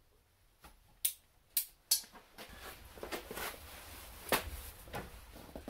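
An orange nylon backpack holding an air tank being handled and put on: three sharp clicks between about one and two seconds in, then rustling of fabric and straps, with another click a little past four seconds.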